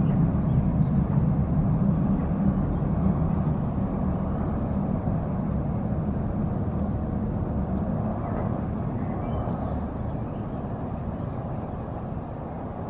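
Ilyushin Il-62M jet airliner's four rear-mounted D-30KU turbofans, a deep rumble slowly dying away as the aircraft moves off.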